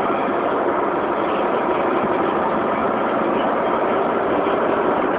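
Hailstorm: hail pelting down, a steady, dense patter of many small impacts that does not let up.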